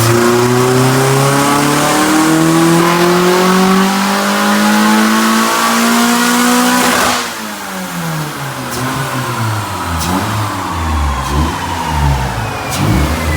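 Honda H22A4 four-cylinder at full throttle on a chassis dyno, exhaust through headers and a single muffler, revs climbing steadily for about seven seconds. The throttle then snaps shut and the revs fall away, with a few sharp pops and a faint falling whine as it winds down.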